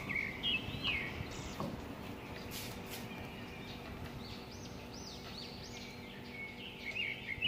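Small birds chirping in short, quick, rising and falling calls, thickest near the start and again over the last couple of seconds, with a couple of light clicks about three seconds in.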